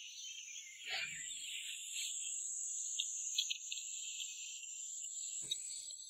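Steady high-pitched chorus of insects buzzing, with faint handling knocks about a second in and again near the end.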